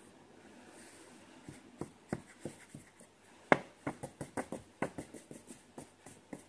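A toy dog figure knocked and tapped against the pages of a picture book: a run of irregular knocks that starts about a second and a half in. The loudest knock comes about halfway through.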